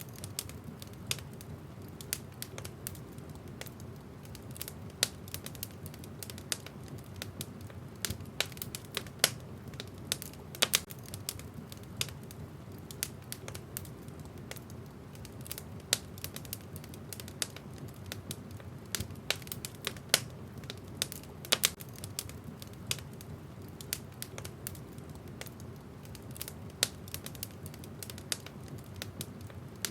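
Wood fire crackling in a fireplace: irregular sharp pops and snaps from the burning logs over a low steady rumble.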